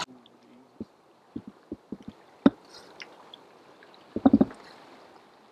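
Small wet knocks and taps of water lapping against a small dinghy's hull, over a faint hiss of moving water, with a louder cluster of knocks about four seconds in.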